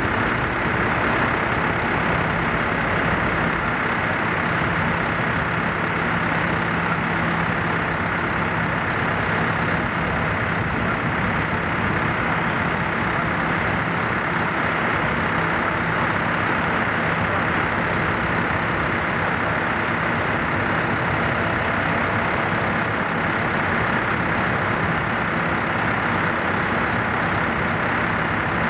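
Heavy engine of the crane and work boat running steadily at constant speed, a continuous hum with a low drone that eases slightly about nine seconds in.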